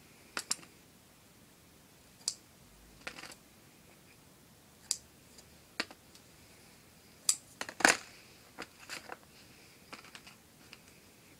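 Small scissors snipping modelling clay, heard as scattered sharp clicks and snips at irregular intervals, with a louder cluster of clicks about eight seconds in.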